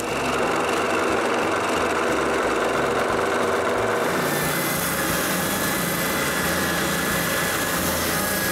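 Scroll saw running and cutting a curve in a plywood piece, then, about four seconds in, a spindle sander running with a steady hum as the curved edge is sanded against the drum.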